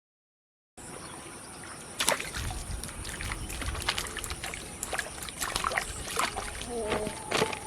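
Canal water splashing and sloshing in quick, irregular splashes, over a steady high-pitched insect drone. The sound cuts in abruptly about a second in.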